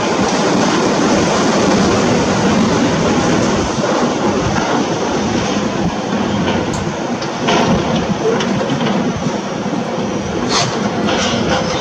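Heavy construction machinery working: a steady engine hum under dense rattling and grinding, with a few sharp clanks in the second half.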